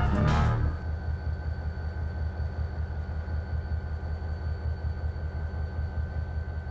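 Music cutting off about half a second in, then a freight train rumbling steadily, with a faint constant high whine over the low rumble.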